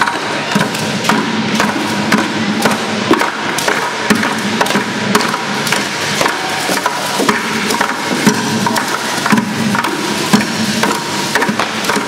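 Many irregular, unsynchronised wooden knocks and clicks, like hand percussion struck at random with no steady beat.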